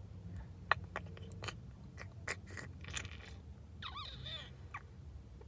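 Small mouth clicks and lip smacks, a handful of short sharp ticks, over a low steady rumble in a car cabin, with a brief falling hum-like sound about four seconds in.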